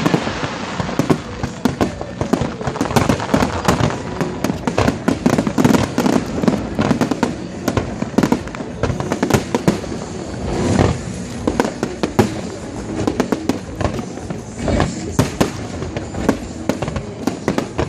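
Aerial fireworks display: a continuous, rapid volley of bangs and crackles from many shells bursting in quick succession.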